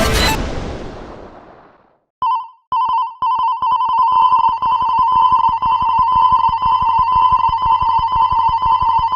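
Electric bell ringing continuously on one high warbling tone with a rapid clicking hammer, as a level-crossing warning sound effect. It starts about two seconds in, breaks off twice in quick succession, then rings without a break. Before it, music fades out with the tail of a crash.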